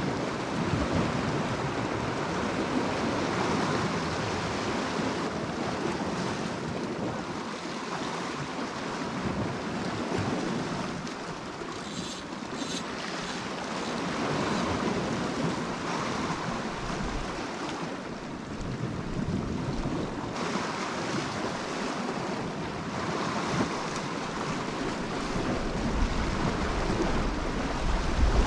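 Sea surf washing against rocks, a steady rushing that swells and eases, with wind gusting on the microphone as a low rumble twice in the second half.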